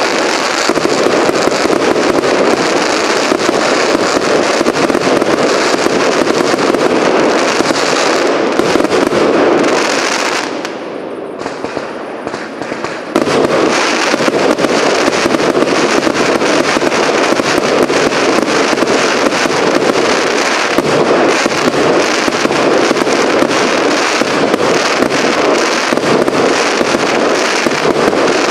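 Firework cake firing in a dense, rapid barrage of launches and bursting shells. It eases off for a couple of seconds about ten seconds in, then starts up again all at once.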